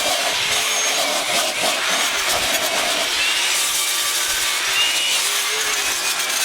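Power grinder grinding down 7018 weld beads built up on a steel anvil's edges: a steady, harsh grinding hiss with a thin whine whose tone shifts about three seconds in.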